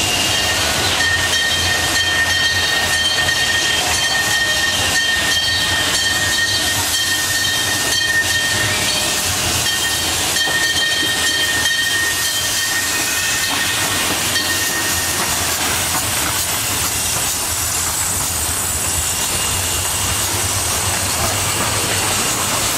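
Miniature live-steam locomotive pulling passenger cars into a station, its steam hissing steadily. A high steady tone sounds for most of the first fifteen seconds, with a short break partway through.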